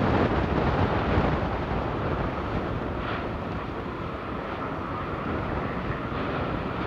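Lava fountaining and spattering from an erupting fissure vent: a steady rushing rumble, a little louder in the first second or so.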